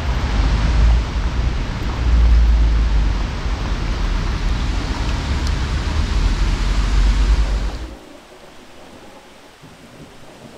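Heavy rain with a deep, fluctuating rumble underneath. It cuts off abruptly about eight seconds in, leaving a much quieter hiss.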